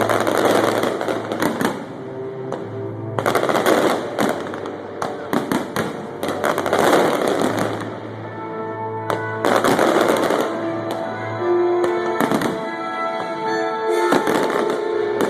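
Fireworks going off in dense clusters of bangs and crackles, a fresh volley about every three seconds, with music playing underneath.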